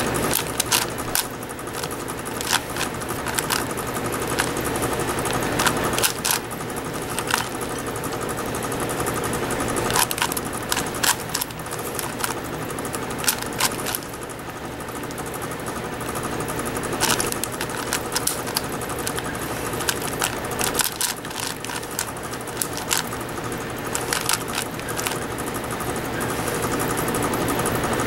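Plastic 5x5 speed cube being turned fast by hand, its layers clicking and clacking in quick irregular runs, over a steady low hum.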